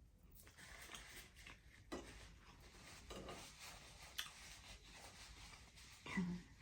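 Faint chewing and mouth sounds of someone eating, with a few light clicks and a short, louder pitched sound near the end.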